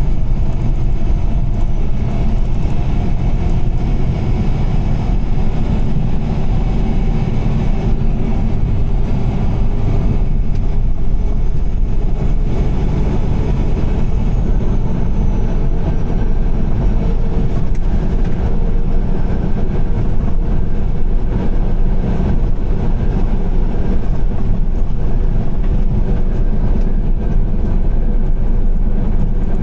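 Car driving on a rain-soaked highway: a steady low rumble of tyres on the wet road and the running engine, with no let-up.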